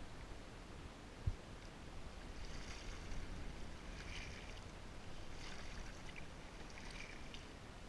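Kayak paddle dipping and splashing in the water with each stroke, about every second and a half, over a steady low rumble. A single sharp knock about a second in.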